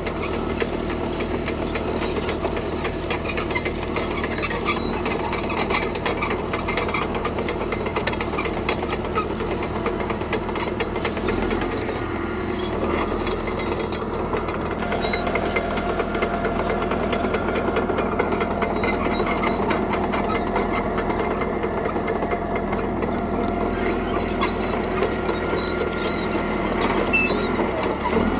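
CAT D3K crawler bulldozer's diesel engine running steadily under work, with a constant clatter of small clicks and rattles from the tracks. The engine note changes about halfway through, a new higher tone coming in.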